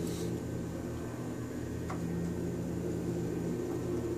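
A steady low mechanical hum, with a short faint click about two seconds in.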